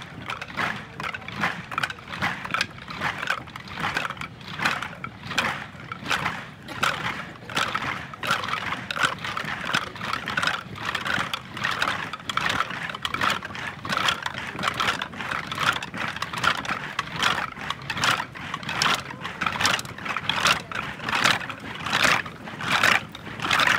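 Boots of a marching column stamping in step, about two footfalls a second, growing louder near the end as the marchers pass close, over a steady murmur of a crowd.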